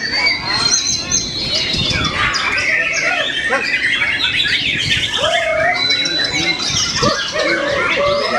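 White-rumped shama (murai batu) singing a rapid, unbroken stream of varied whistles, chatters and swooping notes, with a few long held high whistles among them.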